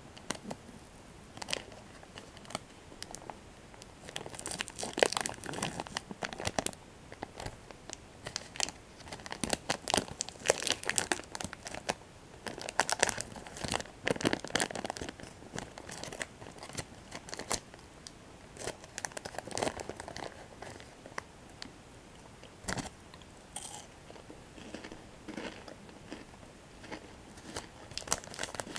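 A Kit Kat wrapper being handled and opened: the red plastic outer wrapper tearing and the white paper inner wrapper crinkling as it is unfolded. The crackling comes in irregular bursts, busiest in the first half, with one sharp snap about two-thirds of the way through.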